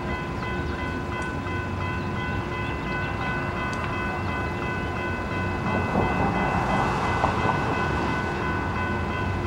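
Electronic railroad crossing bells, a General Signals Type 3 and a National Electric Gate bell, ringing in a fast, steady rhythm while the crossing is activated. A low rumble runs underneath, and a rushing noise grows louder about six seconds in.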